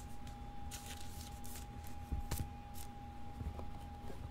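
Faint rustling and light clicks of trading cards and packs being handled and slid against each other, over a faint steady hum.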